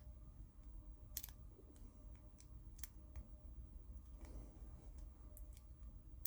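Faint, scattered metallic clicks and scrapes of a lock pick working the pins of a lock against a tension wrench, the sharpest about a second in and near three seconds in. The lock is not opening: the picking is failing on this try.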